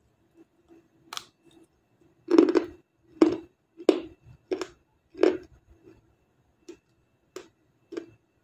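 Close-up crunching of a chunk of dry white edible clay being bitten and chewed: a small crunch about a second in, the loudest crunch just past two seconds, then chewing crunches about every two-thirds of a second that grow fainter toward the end.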